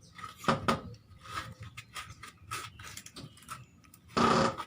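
Light clicks and knocks of the scooter's plastic radiator-fan parts and sandpaper being handled during the repair, with one louder half-second noise about four seconds in.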